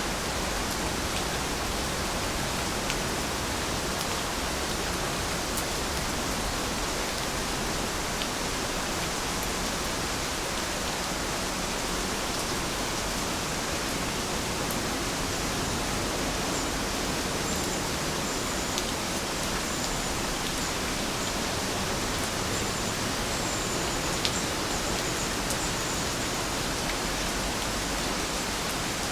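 Heavy rain falling steadily: a dense, even hiss with scattered faint ticks of individual drops.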